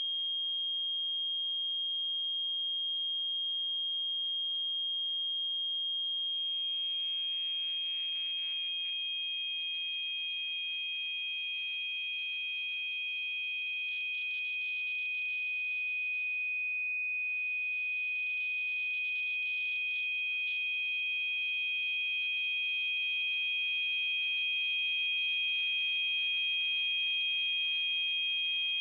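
Electronically generated pure tones for tinnitus masking: one steady high-pitched tone, joined about six seconds in by a second steady tone a little lower in pitch, with a faint hiss around them.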